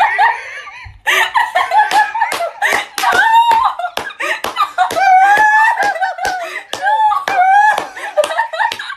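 A girl and a man laughing and making playful vocal noises, with many sharp hand slaps and claps between them.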